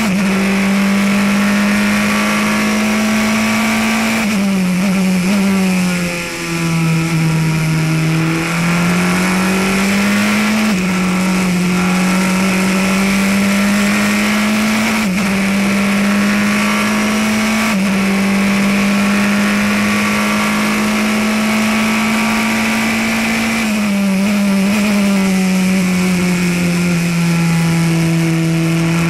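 Onboard sound of the Praga R1T prototype race car's turbocharged engine at racing speed. It holds high revs, falls in pitch under braking about four to eight seconds in and again near the end, and climbs between, with a steady rush of wind and road noise underneath.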